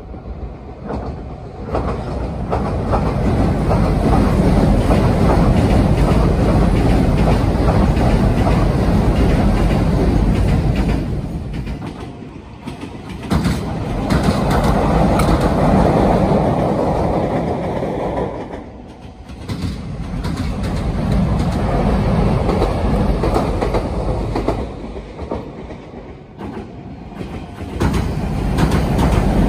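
Meitetsu electric train running on the rails, its wheels clattering over the track in a steady rumble that swells and fades several times.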